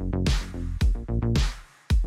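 Electronic background music with a steady beat of deep kick drums, bright hi-hat or snare hits and short pitched notes.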